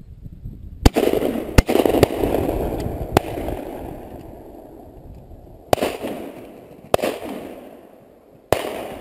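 Shotgun shots: about seven sharp bangs, two close together about a second in and another just after, a fainter one near three seconds, then three more spaced a second or so apart in the second half. Each shot trails off in a long, fading echo.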